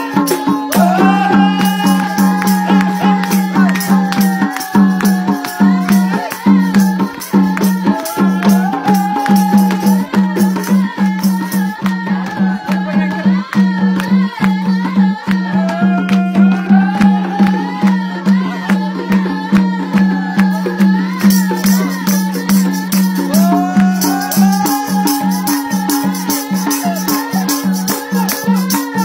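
Nepali folk dance music with a steady drone, a fast rhythmic beat of percussion and hand-clapping, and a gliding melody line.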